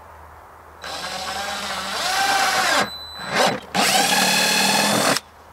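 Cordless drill with a half-inch bit boring a hole through the plastic wall of a 5-gallon bucket. The motor whines from about a second in, stops briefly near the middle with a short blip, then runs again and cuts off shortly before the end.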